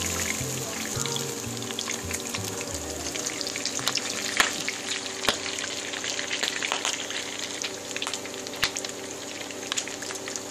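Marinated milkfish frying in hot vegetable oil in a shallow pan: a steady sizzling hiss with sharp pops and crackles, the loudest pops about four and a half, five and a half and nine seconds in.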